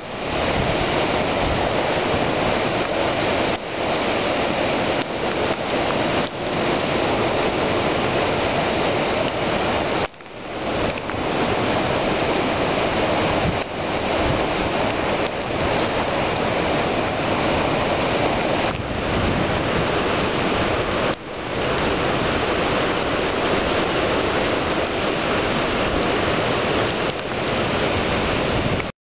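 Hurricane wind and rain: a loud, steady roar of storm wind and rain, with brief dips about a third and two thirds of the way through.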